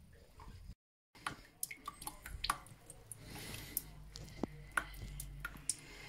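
Water dripping and trickling into a plastic bucket from a gas boiler's condensate outlet, in scattered drips. It is flush water poured through the heat exchanger to wash out deposits.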